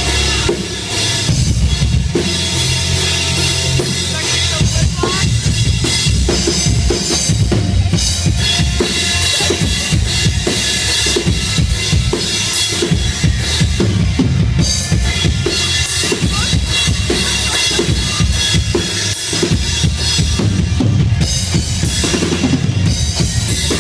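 Live band playing loud music: a drum kit beating steadily under electric guitar, with a heavy low end.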